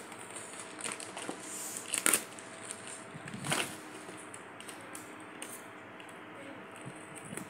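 Plastic packaging and cardboard rustling and crinkling as they are handled. Sharp crackles come about two seconds in and again about a second and a half later.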